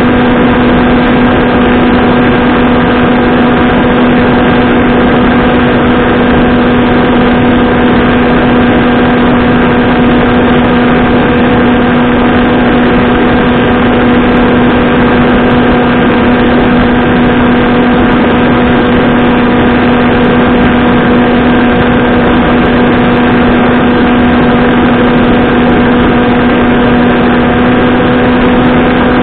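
Skywalker Falcon flying wing's electric motor and pusher propeller running at constant throttle in flight, a steady, unchanging drone with air rushing over the airframe, picked up loud by the onboard camera's microphone.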